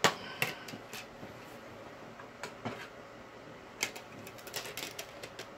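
Scattered light clicks and plastic clatter from a DVD being ejected from the player and swapped for the next disc, with a run of quick clicks near the end.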